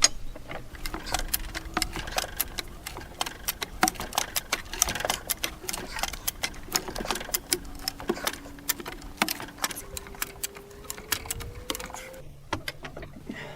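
Farm jack being worked under load: fast, irregular metallic clicking and ticking from its climbing mechanism as it lifts and turns a heavy log, with a faint creak that rises in pitch near the end.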